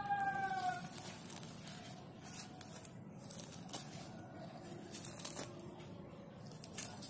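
Ripe palmyra palm fruit being torn open by hand, its stringy fibrous pulp pulled apart with soft tearing, squishing rustles and a few faint crackles. In the first second a short pitched call glides downward over it.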